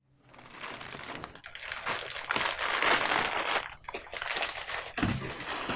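Plastic snack packets rustling and crinkling as a hand sorts through them, loudest in the middle.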